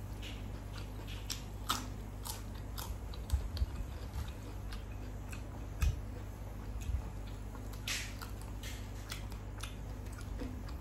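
A person chewing and eating food close to the microphone, with irregular sharp wet clicks and crackles of mouth sounds over a steady low hum.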